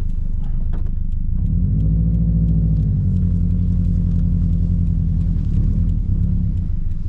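Turbocharged car engine running under way, a low drone that rises in pitch about a second and a half in, then holds steady.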